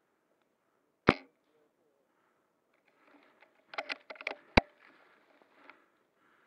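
Bolt-action spring airsoft sniper rifle firing a sharp shot about a second in; a rapid run of clicks as the bolt is worked back and forward; then a second shot shortly after.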